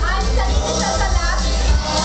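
Music with a strong, steady bass line.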